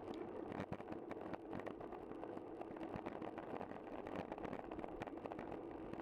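Road bicycle riding noise: a steady rush of tyres on tarmac and wind, dotted with frequent small clicks and rattles.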